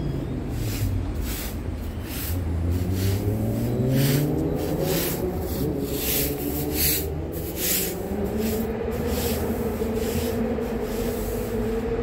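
Electric MTR train's traction motors whining, rising steadily in pitch for several seconds as the train accelerates, then holding a steady tone. A regular light tapping sounds about twice a second.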